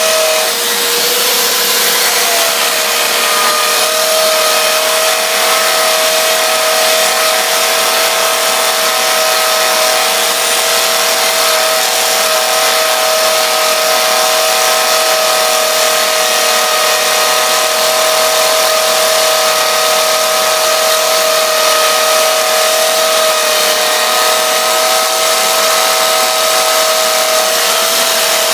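Electric drill running continuously under load, boring into stone with a freshly resharpened bit. A steady motor whine over the grinding, dropping slightly in pitch about two seconds in.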